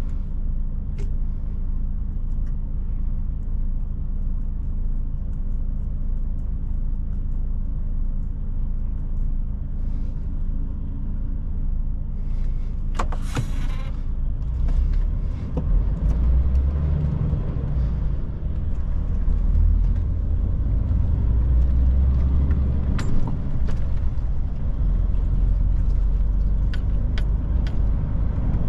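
DAF truck driving: a steady low rumble of diesel engine and road noise. About halfway through there is a short hiss, and the low rumble grows stronger in the second half.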